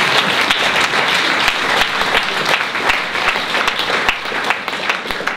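Audience applause: many hands clapping, slowly fading and dying away near the end.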